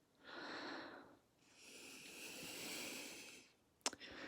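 Two faint breaths, the second longer, then a single small click near the end.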